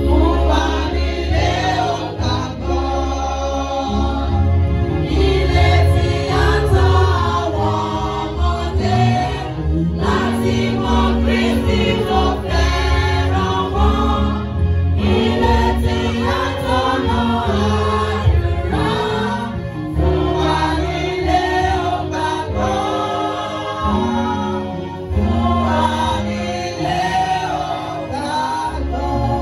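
Gospel song sung by a choir of voices, led by a woman on a microphone, with a live church band of keyboard, guitar and drums and a heavy bass line.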